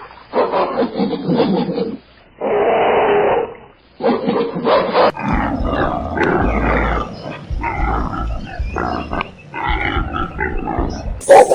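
Animal roars and growls from several short recordings spliced one after another: three separate calls in the first five seconds, then a longer run of growling with a deep rumble under it, and a new recording starting near the end.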